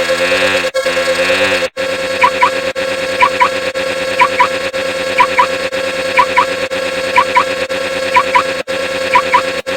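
A cacophony of layered electronic sound effects. A warbling, many-toned sound cuts off sharply about two seconds in. A steady buzzing tone follows, with pairs of short rising chirps about once a second.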